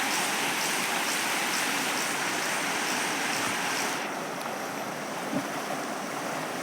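River water rushing, a steady hiss of flowing water. Its higher part thins out about four seconds in.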